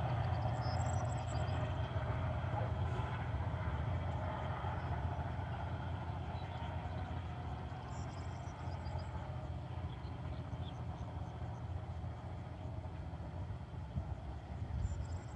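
Low, steady rumble of a diesel-hauled freight train, slowly fading as it moves away.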